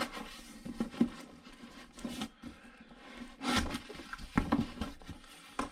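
Cardboard box being opened by hand: the lid and flaps scrape and rustle, with a few light knocks. The scuffing is loudest for about a second past the middle, as the lid comes up.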